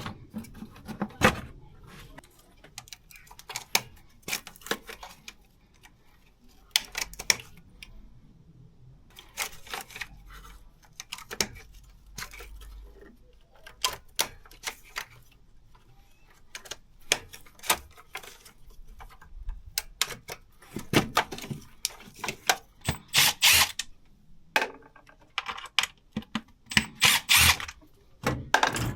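Hand tools clicking and clinking on metal engine parts in irregular bursts, with runs of quick, typewriter-like clicks, as the intake manifold is unbolted.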